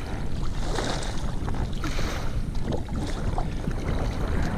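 Wind buffeting the microphone, a steady low rumble, with scattered small splashes and knocks at the kayaks.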